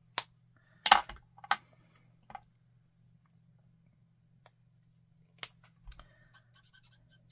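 Copic alcohol markers clicking as they are set down on the craft mat and their caps are pulled off and pushed back on: several sharp clicks, the loudest about a second in. Near the end comes faint scratching as a marker nib colours a small paper die-cut.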